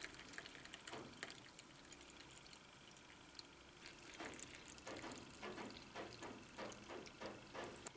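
Milky masala chai poured from a ceramic teapot into a porcelain teacup, faint, with a run of soft, irregular splashing ticks in the second half.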